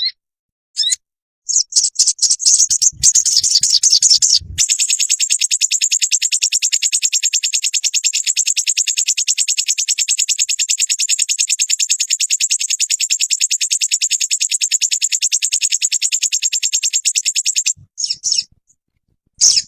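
A sogon bird singing. A few short high chirps lead into one long, fast, even trill lasting about thirteen seconds, then a few more chirps. Two brief low thumps come near the start of the trill.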